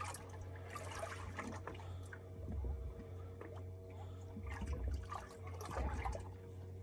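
Small waves lapping and slapping irregularly against a boat's hull, over a steady low hum.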